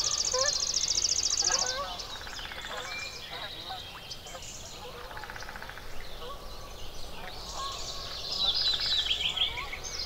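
Several songbirds calling and singing at once. A fast, high trill runs for the first second or two, shorter lower trills and chirps follow through the middle, and a burst of high warbling comes near the end.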